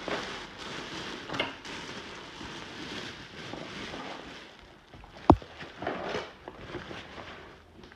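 Rustling and crackling of household trash and debris with scattered light knocks, and one sharp knock a little over five seconds in.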